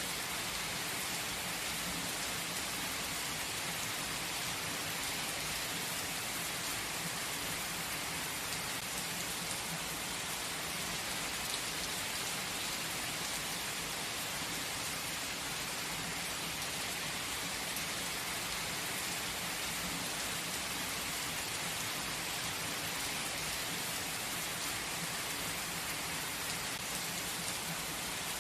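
Steady gentle rain falling, a continuous even hiss of drops with no let-up or change.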